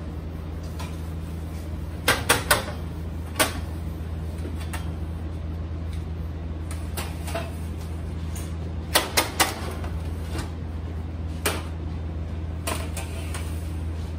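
Metal baking trays clanking and sliding as they are moved between a convection oven and a stainless steel rack. The clanks come in quick clusters, three about two seconds in and three more about nine seconds in, with a few single knocks between. A steady low machine hum runs underneath.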